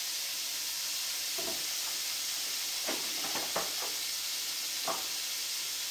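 Cut-up thick-sliced bacon sizzling steadily in a hot stainless steel skillet, with a few short clicks scattered through.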